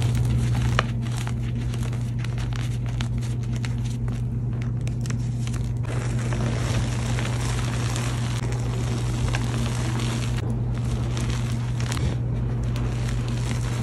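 Hands crushing crumbly reformed gym chalk: sharp crackling and crunching of chalk pieces breaking, then from about six seconds in a denser, continuous gritty rustle of the powder being scooped and squeezed. A steady low hum runs underneath.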